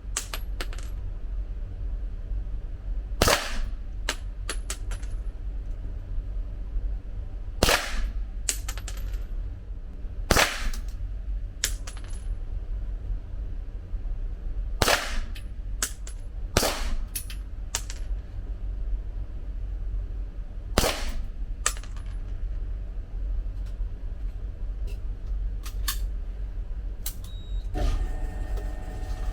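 Pistol shots fired singly, several seconds apart: about seven loud reports with fainter shots between, several followed by a light metallic tinkle.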